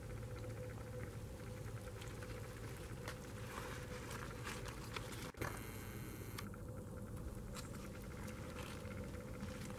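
Faint, soft crackling and rustling over a steady low hum, with a short dropout about five seconds in.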